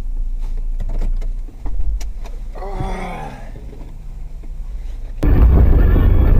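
Low, steady road and engine rumble inside a car driving on a snowy road, with a few knocks and a short voice-like cry about three seconds in. About five seconds in, it cuts abruptly to a much louder recording.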